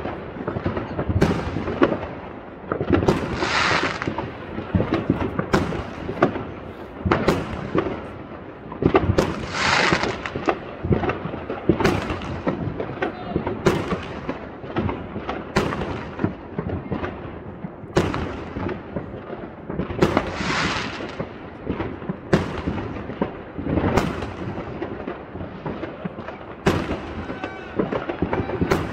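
Fireworks going off overhead: a run of sharp bangs every second or so, irregular and overlapping, over a constant rumbling echo. Three times a longer hissing crackle rises over the bangs.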